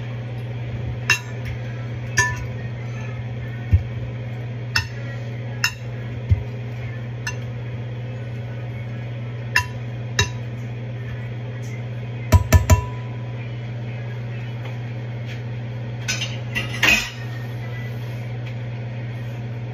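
A utensil clinking against a glass mixing bowl as food is tossed in it: about a dozen sharp, scattered clinks, with a quick run of three near the middle and a louder cluster near the end. A steady low hum runs underneath.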